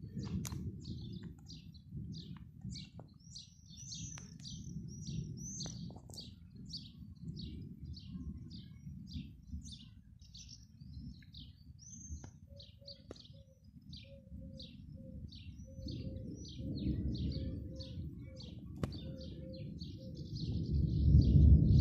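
Small birds chirping in quick, repeated short notes, with a lower note repeating about twice a second in the second half. Underneath runs a steady low rumble that swells loudest near the end.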